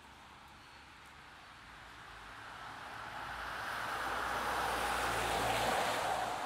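A vehicle passing on a wet road: its tyre hiss swells over a few seconds, with a faint engine rumble underneath, and is loudest near the end before it starts to fade.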